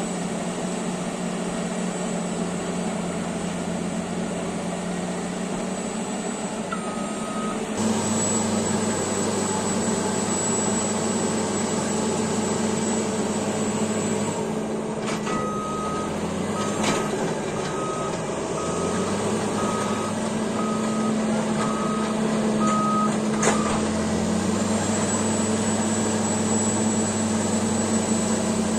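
Cat D8T bulldozer's diesel engine running steadily, its note getting louder about eight seconds in. Partway through, the backup alarm beeps about once a second for around eight seconds while the dozer reverses.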